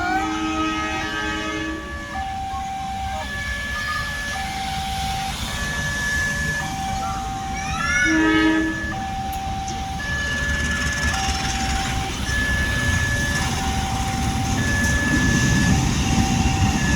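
Automatic railroad crossing siren sounding its repeating warning, switching between two electronic tones about once a second. A train horn blows briefly at the start and again about eight seconds in. The rumble of an approaching train grows toward the end.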